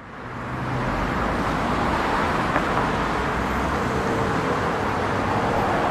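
Steady road traffic noise, a continuous hum of passing cars, fading in at the start.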